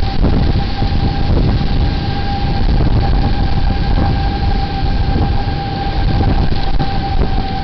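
Outdoor tornado warning siren holding one steady tone, swelling and fading slightly in loudness, under heavy wind buffeting the security camera's microphone.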